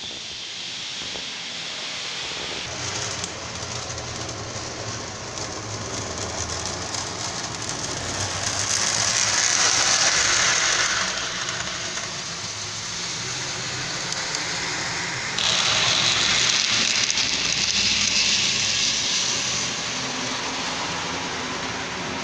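Model railway running: a steady low mechanical hum under a noisy hiss. The hiss swells twice, once around the middle and again, starting suddenly, a little later for a few seconds.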